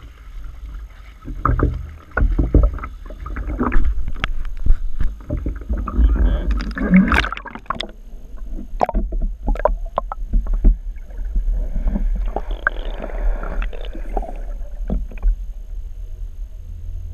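Lake water sloshing and splashing around the nose of a skimboard, with a camera mounted on it that goes under the surface; a steady low rumble with many sharp knocks and splashes, loudest about six to seven seconds in.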